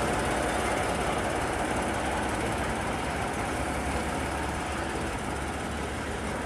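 Diesel engine of a DR V 60 (class 345) shunting locomotive running with a knocking beat as the locomotive pulls away along the track. It fades gradually as it moves off.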